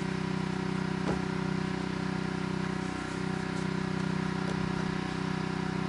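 Gas pressure washer engine running steadily at an even pitch.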